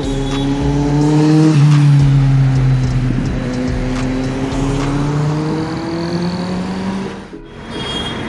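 A road vehicle's engine accelerating past, its pitch climbing, dropping about a second and a half in as if at a gear change, easing down, then climbing again. The sound briefly drops out about seven seconds in.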